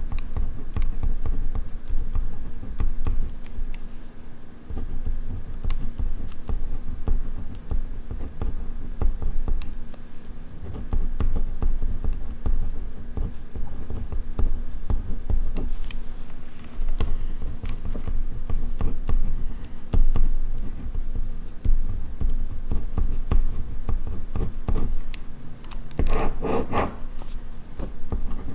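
Ballpoint pen writing on paper: a continuous run of small scratching strokes and taps of the pen tip. A brief louder sound stands out near the end.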